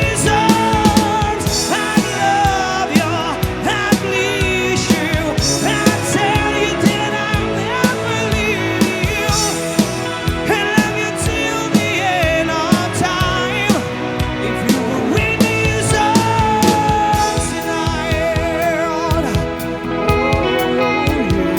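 A live band playing a rock ballad, with a lead vocal sung with vibrato over drum kit and guitar.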